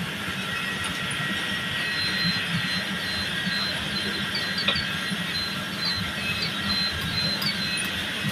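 Computerized jacquard flat knitting machine running, its carriage travelling along the needle beds: a steady mechanical hiss and whir with a thin high whine that comes and goes. A single sharp click comes about four and a half seconds in.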